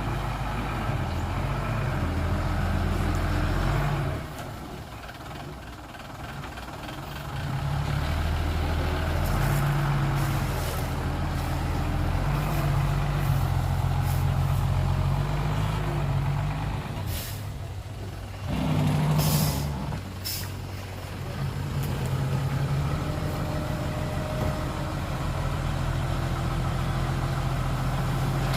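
Heavy diesel dump truck engines running and changing speed, with a short hiss of air brakes about two-thirds of the way through.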